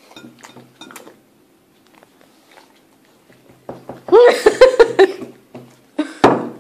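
Faint clinks and rustles of food being handled on a plate, then a loud, short vocal outburst about four seconds in, and a sharp clatter of the plate near the end.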